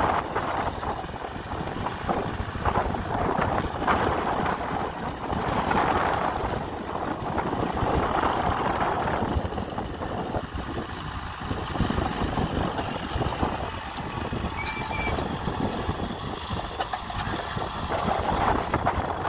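Kubota M6040SU tractor's four-cylinder diesel engine running steadily under load while pulling a disc plough through the soil, with swells of wind noise on the microphone.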